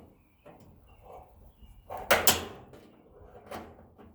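Knocks and clatter of metal furnace parts being handled, with two loud bangs close together about two seconds in.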